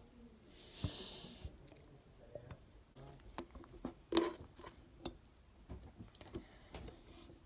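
Homemade stretchy, slightly sticky slime being squished and worked by hand, making irregular wet clicks and pops. There is a short hissy rustle about a second in, and the loudest pop comes just past the middle.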